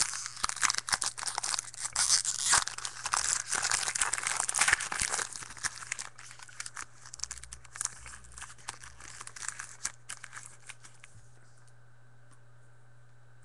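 Foil trading-card pack wrapper being torn open and crinkled. Dense crackling for the first five or six seconds thins to scattered light clicks of handling, which stop about two seconds before the end.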